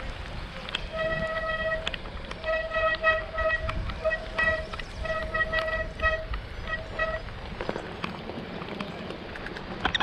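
Bicycle brakes, wet from the rain, squealing in a steady high tone that starts and stops again and again as they are applied. Rolling and wind noise runs underneath, and near the end tyres crackle over gravel.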